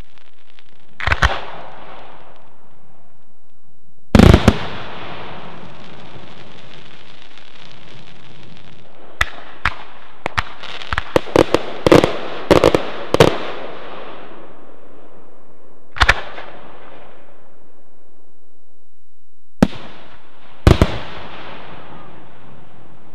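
Aerial firework shells bursting in a series of sharp bangs, each trailing off in an echo. Single bangs come about a second in and about four seconds in, the second being the loudest. A rapid cluster of about a dozen bangs follows around ten to thirteen seconds, with further single bangs near sixteen seconds and again near the end.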